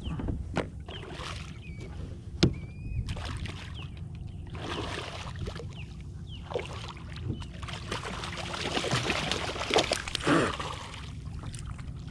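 Water splashing and sloshing, with scattered knocks and one sharp knock a couple of seconds in, as a hooked spotted seatrout thrashes at the surface beside the boat. A low rumble of wind on the microphone runs underneath.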